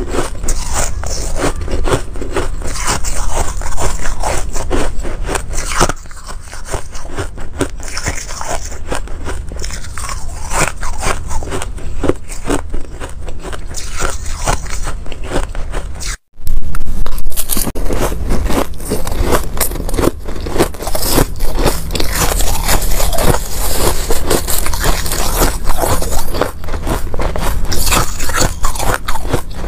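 Ice being bitten and chewed, loud dense crunching bite after bite: first from frosty ring-shaped ice blocks, then, after a sudden break of a split second a little past halfway, from spoonfuls of packed shaved ice.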